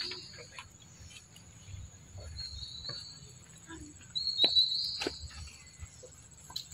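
Insects droning steadily at a high pitch, with three short high chirps, the loudest about four seconds in, and a few faint clicks.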